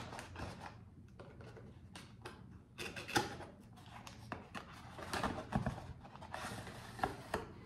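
A cardboard box being opened by hand: scattered rustles, scrapes and light knocks of the cardboard flaps and packaging, coming in short bursts.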